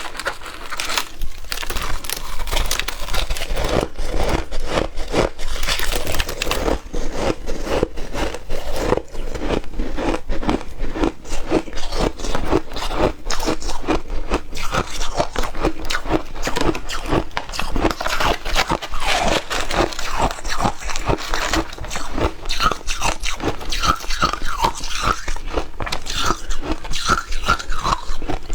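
Close-miked biting and chewing of frozen shaved ice: a dense, continuous run of crisp crunches. Short squeaky tones join the crunching in the last few seconds.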